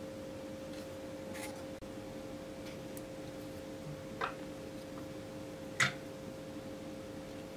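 A few small clicks and taps of a through-hole component's leads being handled and pushed into a printed circuit board, the loudest near the end, over a steady faint hum.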